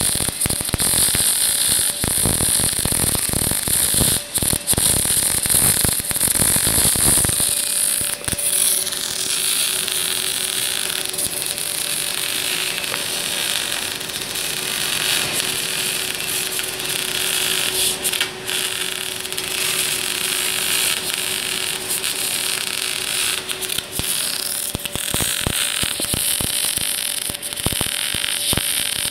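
MAG (gas metal arc) welding arc on a steel pipe, welded vertical-up, crackling and hissing without a break. For a long stretch in the middle the crackle turns to a smoother, steadier hiss, and the dense crackling comes back near the end.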